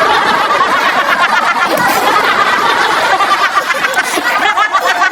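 Studio audience laughing loudly, many voices at once.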